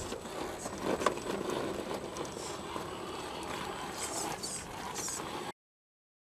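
RC rock crawler working its way over rock, its tyres and chassis scraping and crunching on stone, with a sharp knock about a second in. The sound cuts off abruptly near the end.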